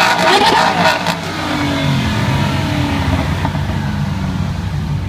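Sports car engine revving, its note gliding up and down, then running on as a low rumble.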